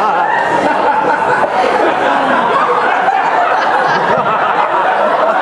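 Audience laughing loudly, many voices overlapping in a steady mass of laughter.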